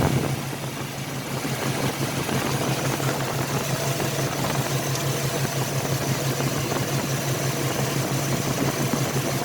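Ford Ranger engine idling steadily with a misfire: at least one cylinder is not firing, which the owner traces to a coil pack.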